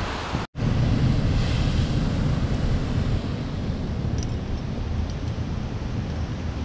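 Wind buffeting the microphone over the steady wash of ocean surf against the rocks, a low rumble throughout. The sound cuts out for an instant about half a second in.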